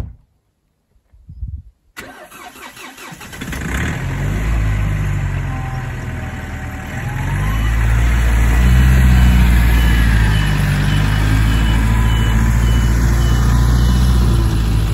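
A pickup truck's engine starts a couple of seconds in and runs, then grows louder around the middle as the truck pulls away and keeps going.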